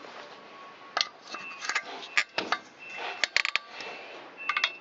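Metal hand tools and small engine parts clinking and tapping while being handled: a scatter of sharp clicks, with a quick cluster of them about three seconds in.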